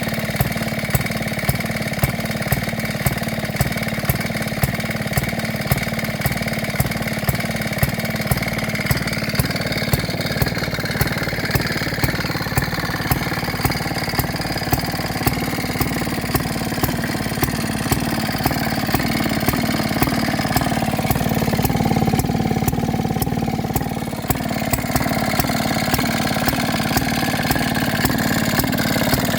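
A 3/4 hp Associated stationary gas engine driving a Bulldozer pump, running with an even beat a little under two a second over a steady mechanical clatter. The level dips briefly about 24 seconds in.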